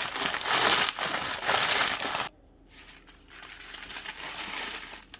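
Doritos tortilla chips being crushed by hand, crunching loudly for about two seconds, then more quietly.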